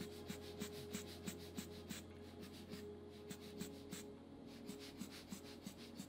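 Short scratching strokes of a marker or tool tip worked over paper, about three a second, over a faint steady low hum.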